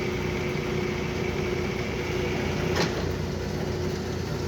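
Metal lathe running steadily with a constant hum, with a single sharp click about three seconds in.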